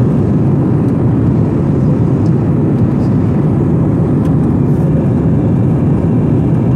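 Engines and rushing air of an airliner climbing just after takeoff, heard inside the passenger cabin as a steady low noise.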